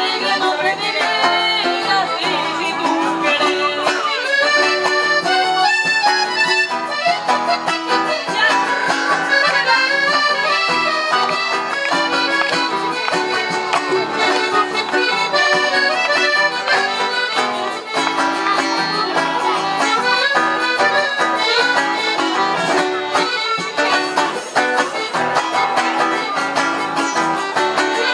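Piano accordion playing the melody, with an acoustic guitar accompanying it, as live traditional-style music.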